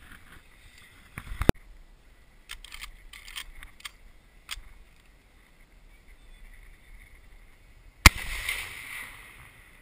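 A single shotgun shot about eight seconds in, a sharp report with an echo that fades over a second or so. Before it there is a sharp knock about one and a half seconds in, then a few light clicks of handling.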